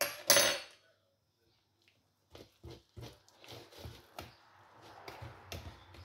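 A loud clatter of a kitchen utensil right at the start. Then, from about two seconds in, a hand wire whisk beating flour into thick banana cake batter in a bowl: rhythmic strokes about three a second that thicken into steady wet scraping.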